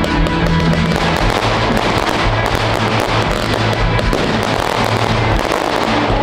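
Aerial firework shells bursting and crackling in rapid succession, over loud music with held bass notes.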